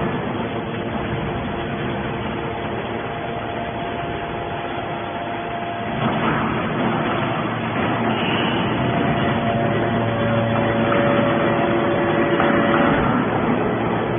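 A 100-ton hydraulic metal baler running: a steady mechanical hum with pump tones that shift in pitch. It gets louder about six seconds in, as the machine comes under more load.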